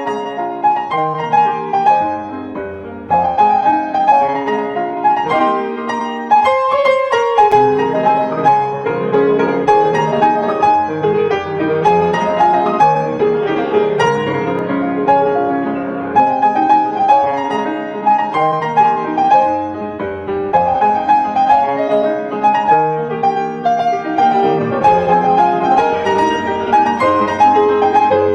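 Solo piano music, a gentle piano cover of an anime song, playing steadily.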